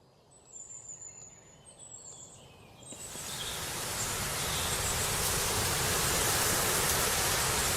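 Faint high bird chirps, then about three seconds in a steady rushing noise swells in over a couple of seconds and holds, drowning them out.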